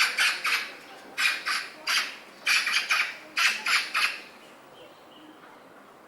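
Woodland birds giving a quick series of harsh, scratchy calls for about four seconds, then stopping, leaving only faint background sound.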